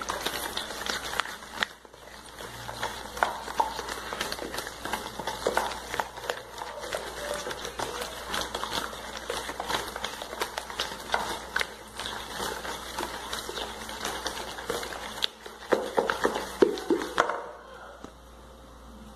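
A spoon stirring and beating cornmeal batter in a plastic bowl: a continual run of scraping and light knocks against the bowl, which stops about seventeen seconds in.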